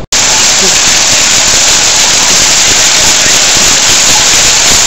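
Water fountain jets splashing down onto wet paving: a loud, steady rush of falling water that starts suddenly just after the beginning.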